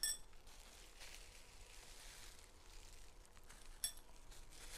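Two light ringing clinks of metal chopsticks against the serving tray, one at the start and one near the end, over faint rustling as rolls are assembled by hand.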